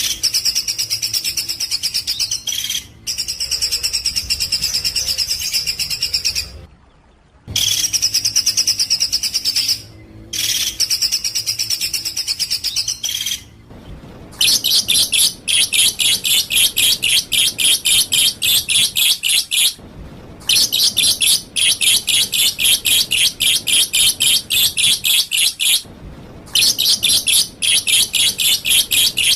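Recorded songbird song used as a masteran training track for cage birds: long bursts of rapid, high, chattering notes broken by short pauses, turning louder and fuller about halfway through.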